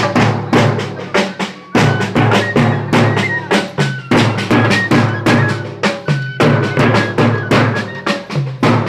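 A group of drums played live together in a fast, steady beat for a dance, with several strikes a second over a deep, booming undertone. A few short high tones ring out now and then above the drumming.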